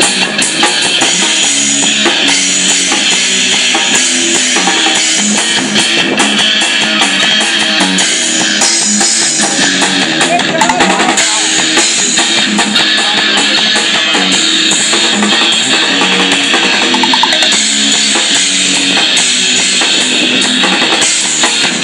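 Rock music with a drum kit and guitars playing steadily and loudly, with a repeating bass line.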